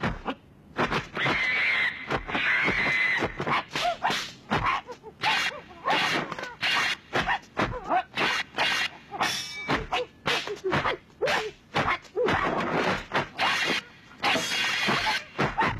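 Kung fu film fight sound effects: a rapid, irregular string of punch and block hits, with short pitched cries in between.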